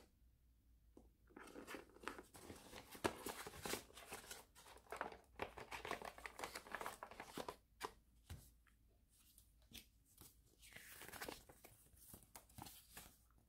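Faint rustling, scraping and clicks of packaging being handled: a white plastic tray is lifted out of a cardboard box, then a folded paper leaflet is opened with crinkling near the end.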